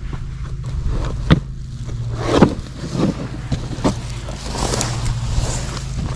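Footsteps through tall grass and the rustle and scrape of an old carpet remnant being lifted off a junk pile, with sharp knocks about a second and two and a half seconds in, over a steady low hum.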